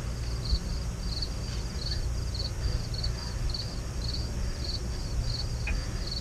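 Insects chirping outdoors in a steady train of short, high chirps, about three a second, over a low, steady rumble.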